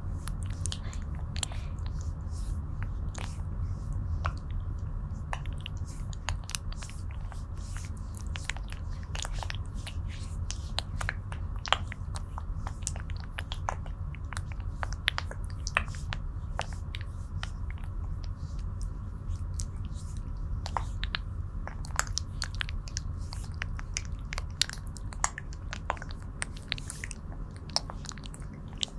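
Fingertips massaging cream over a rubbery mannequin face, close-miked. A constant irregular patter of small wet, sticky clicks and squelches rides over a steady low rumble of hands sliding on the surface.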